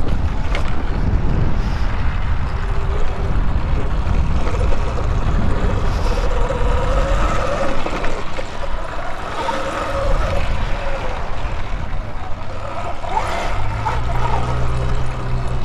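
Heavy wind rumble on the microphone while riding an electric bike off-road. A steady low hum joins about two seconds before the end.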